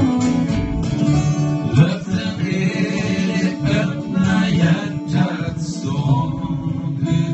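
Two acoustic guitars strummed together over an upright double bass, playing a steady country-folk accompaniment.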